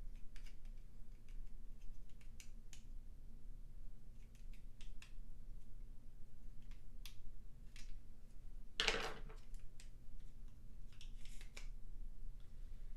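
Scattered small clicks and taps of a plastic model-locomotive body shell being handled and pressed onto its chassis, with a louder scraping rustle about nine seconds in and another cluster of clicks a little later. A low steady hum runs underneath.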